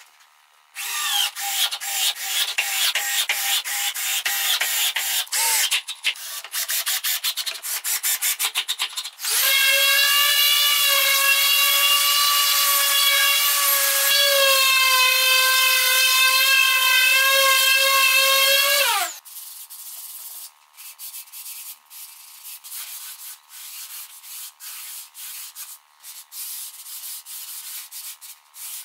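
Sanding a pine tabletop: first loud, scratchy rubbing strokes, then a random orbital sander running with a steady whine that drops in pitch and winds down about two-thirds of the way through. Quieter rubbing on the wood follows.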